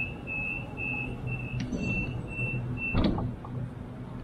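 Sydney suburban train's door-closing warning: a high beep repeated rapidly, stopping just under three seconds in, when the sliding doors shut with a knock. A steady low hum from the train runs underneath.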